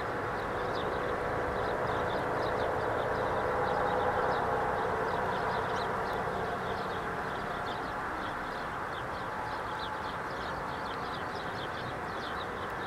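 Boeing 767-200ER's twin turbofan engines at takeoff power through the takeoff roll and lift-off: a steady rumble with a droning tone, swelling to its loudest about four seconds in and easing slightly after.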